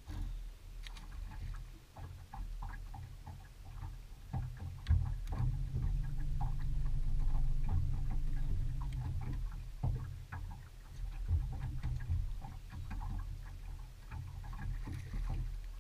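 Low rumble of water and wind around a bass boat on the deck-mounted microphone, with many small irregular clicks and taps from the hull and gear. From about five to nine seconds in, a steadier, louder hum from the bow-mounted electric trolling motor.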